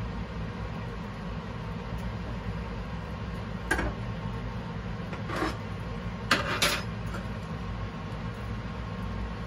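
Steady low hum, broken by a few short clinks and knocks, the loudest about four seconds in and near six and a half seconds in, as a ceramic plate and metal tongs are set down on a stainless-steel kitchen counter.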